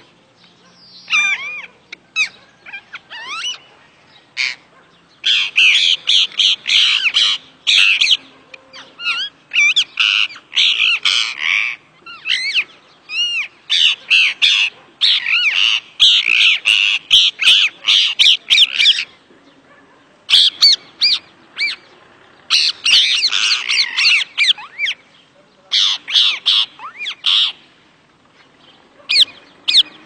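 Green parakeets screeching in bouts of harsh, fast-wavering calls, several seconds at a time with short pauses between.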